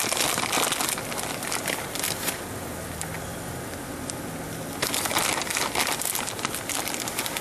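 Plastic bag of shredded cheese crinkling as the cheese is shaken out over the pan, in two bouts of rustling with a pause between, over a steady faint crackle.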